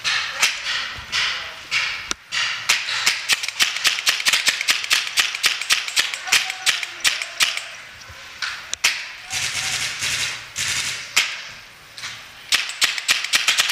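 Paintball markers firing many shots in quick irregular runs, sharp cracks a few to several per second.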